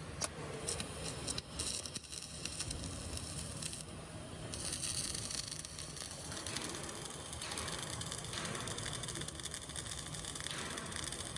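CO2 MIG welding arc crackling and hissing steadily as a vertical-up (3G) bead is run, the third pass at 28–30 V with the wire set to 180–200 A. A few sharp clicks come in the first second or so as the arc starts.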